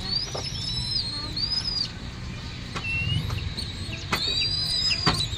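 White downy raptor chick giving a string of high, thin begging whistles while being hand-fed, each call rising then holding briefly before breaking off, about one a second, over a low steady hum.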